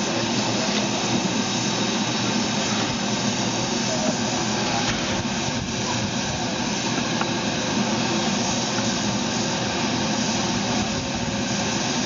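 Steam escaping from the NSW C36 class steam locomotive 3642, hissing steadily from low down beside its front wheels.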